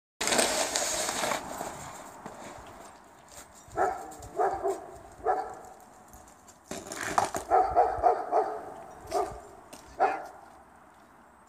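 A rush of scraping noise at the very start, then a dog barking in short, sharp barks: a few spaced ones, then a quick run of them about seven seconds in, and two more near the end.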